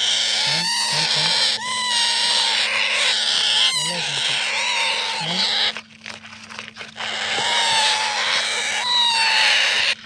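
Rose-ringed parakeet chicks screeching in loud, continuous rasping calls as they are handled in a cardboard box; the calls stop for about a second near the middle and then start again.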